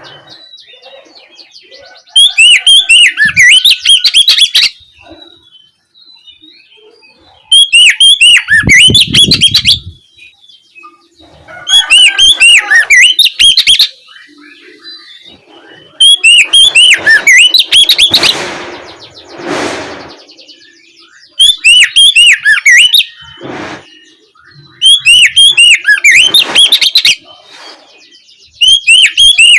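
Oriental magpie-robin (kacer) singing loud, rapid whistled phrases in repeated bursts of about two seconds, some seven in all, with short pauses between. A brief rushing noise comes about two-thirds of the way through.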